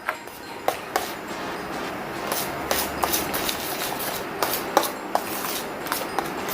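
A kitchen utensil scraping and clicking against a bowl while crushed butterscotch brittle is mixed into whipped ice-cream base, with irregular sharp taps throughout.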